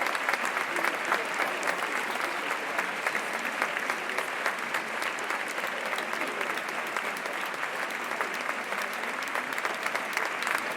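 Crowd applauding: many people clapping steadily in a dense patter of claps that keeps an even level.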